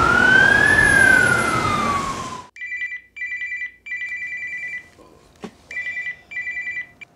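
An emergency-vehicle siren wails over traffic noise, its pitch rising and then falling, and cuts off suddenly about two and a half seconds in. A telephone then rings in short, repeated electronic bursts, with a single sharp click between rings.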